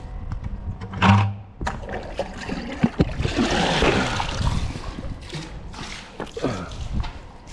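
Water splashing and trickling for a couple of seconds in the middle, with a few knocks and handling sounds around it.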